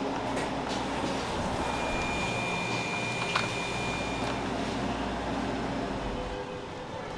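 Steady mechanical hum and noise, with a thin high whine for about two seconds and a light click about three seconds in.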